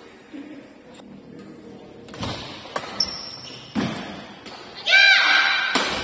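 Shuttlecock struck by badminton rackets during a doubles rally: a few separate sharp knocks with hall echo, and a short high squeak about three seconds in. A loud shout about five seconds in is the loudest sound.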